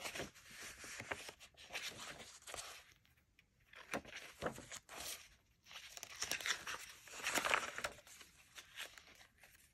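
Paper pages of a handmade junk journal rustling and swishing as they are turned by hand, several page turns in a row, the loudest about two thirds of the way through.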